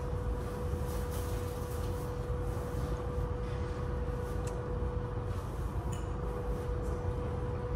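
Steady airport background noise heard from inside the terminal: a constant low rumble with a steady hum, and a few faint ticks.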